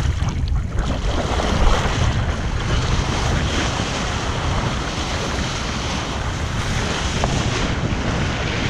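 Wind buffeting an action camera's microphone, with the steady rush of water from a kiteboard skimming across shallow water.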